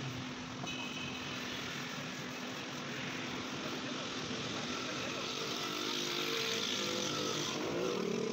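Motor vehicle engine running over steady street traffic noise, its pitch rising a little near the end.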